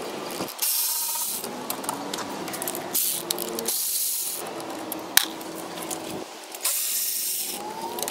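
Cordless power ratchet spinning out motor mount bolts from a marine transmission housing, running in several short whirring bursts with pauses between, and a sharp click about five seconds in.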